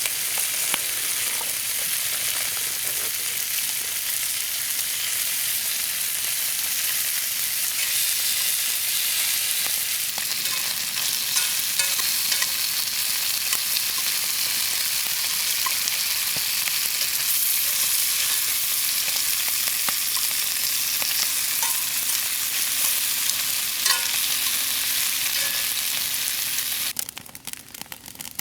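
Meat sizzling over a campfire: a steady frying hiss with scattered small pops and crackles. The sizzling cuts off abruptly near the end, leaving only a few faint ticks.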